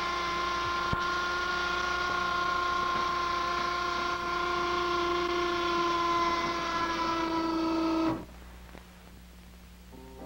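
A single steady pitched tone, held for about eight seconds, sags slightly in pitch and then cuts off suddenly. A low hum remains after it.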